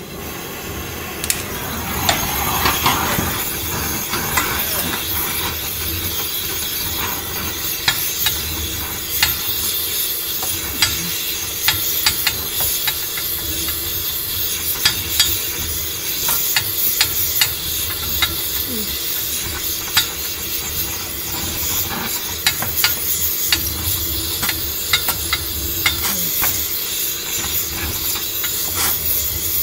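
Gas torch flame hissing steadily with frequent sharp crackles as it heats a bent car frame rail to soften it for pulling straight.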